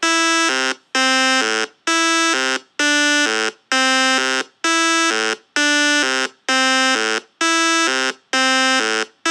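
A simple monophonic Pure Data square-wave synth, sequenced from Renoise over MIDI, playing a short melody of buzzy electronic notes. Each note is cut off by a note-off, leaving a brief gap, about one note a second.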